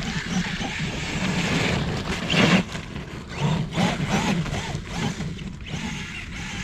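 Kyosho Foxx RC truck on paddle tires driving through heavy wet snow: its electric motor and drivetrain run, swelling and easing as the throttle is worked, while the tires churn the snow.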